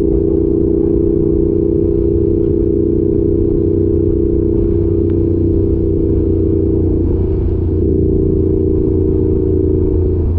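Yamaha YZF R7's parallel-twin engine through an Arrow exhaust, running steadily at a cruise while the bike is ridden, with a slight change in engine pitch about seven seconds in.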